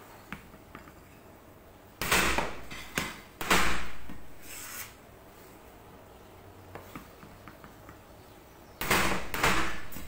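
Flat of a cleaver smacking down on white peppercorns on a plastic cutting board to crack them: several sharp blows a couple of seconds in and two more near the end, each with a short crunching tail.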